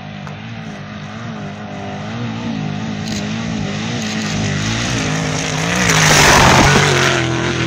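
An off-road race truck's engine approaches through deep whoops, its pitch rising and falling as the throttle comes on and off over the bumps. It grows louder and passes close by about six seconds in with a rush of tyres and flung dirt, then its note drops as it goes away.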